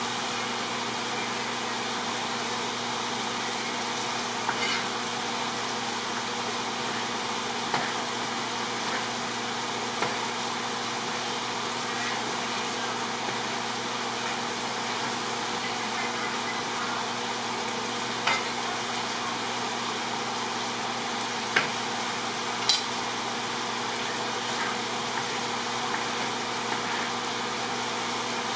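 Chicken tikka frying in oil in a large pan: a steady sizzle, with a few short sharp clicks scattered through it.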